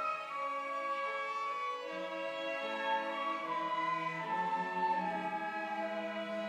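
Church orchestra playing a praise hymn, violins carrying a flowing melody of held notes over a pulse of short repeated accompaniment notes.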